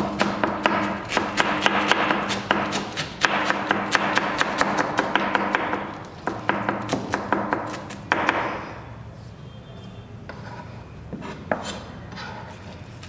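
Chef's knife rapidly shredding cabbage on a plastic cutting board, a quick even run of knife strikes about four or five a second. The chopping stops about eight or nine seconds in, leaving only a few scattered knocks as the shreds are gathered up.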